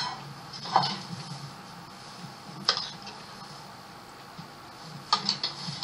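A spoon clinking and knocking against a bowl and pot a few times while root-vegetable mash (rotmos) is ladled out. There is a single knock about a second in, a sharper one near the middle, and a short run of clicks near the end, over a quiet background.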